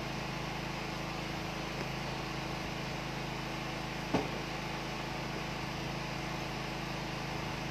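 Steady background hum and hiss, with one short sharp sound about four seconds in.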